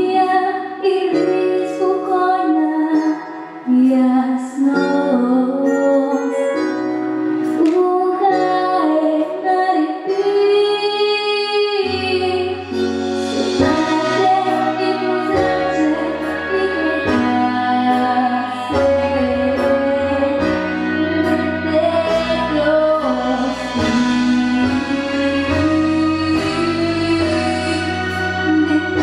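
A female voice singing a melody over instrumental backing, holding one long note with vibrato just before a deeper bass line comes in about twelve seconds in.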